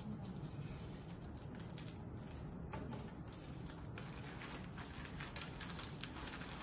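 Plastic courier envelopes crinkling and rustling as they are cut open with scissors and handled, a run of quick crackles that grows denser from about three seconds in.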